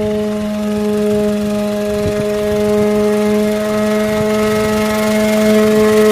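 Small engine running at a steady high speed, a constant droning whine that slowly grows louder.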